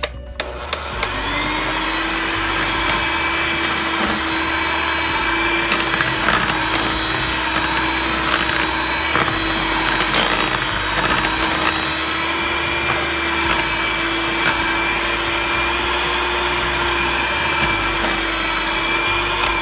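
Electric hand mixer running at one steady speed, its beaters whipping thick cake batter. The motor whine rises as it starts about a second in and drops away as it is switched off at the end.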